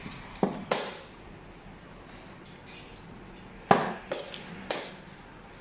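Xiangqi pieces clacking as they are picked up and set down on the board during moves. There are two sharp clacks about half a second in, then three more close together a little past halfway, the first of these the loudest.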